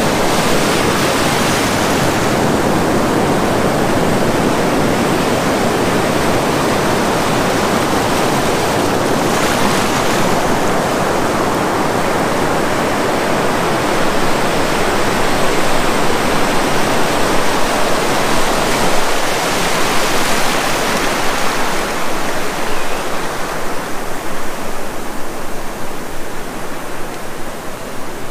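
Ocean surf rushing and breaking in the shallows: a steady wash of whitewater that turns more uneven in loudness near the end.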